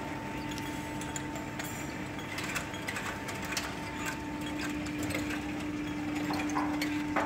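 Steady machine hum at two constant pitches, with scattered light clicks and knocks over it.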